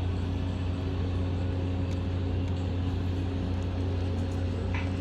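Steady low hum of a vehicle running at an even speed: a constant deep drone with a fainter steady tone above it, unchanging in pitch.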